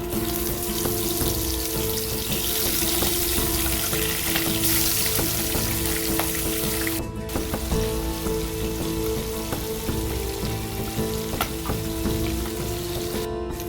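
Food frying in hot oil in a pan: a steady, loud sizzle that breaks off briefly twice, about seven seconds in and near the end.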